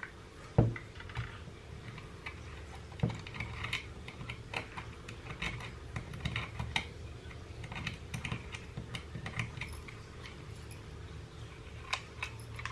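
Light, irregular clicks and scrapes of a small precision screwdriver working against the plastic casing and small parts of a Baofeng handheld radio being taken apart, with two sharper knocks, one about half a second in and one about three seconds in.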